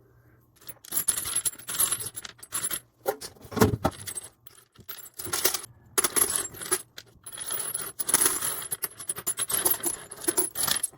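Spent brass cartridge casings and loose rounds clinking and rattling against each other as they are sorted through by hand: an irregular run of small metallic clicks and jingles, with short pauses.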